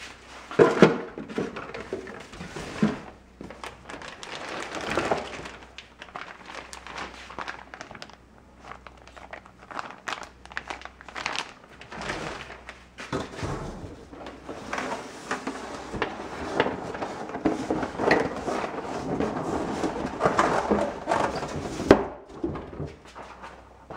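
Packaging being handled: plastic bags crinkling and a cardboard box rustling, with irregular clicks and knocks. A loud knock comes near the end as the truck is lifted out of the box.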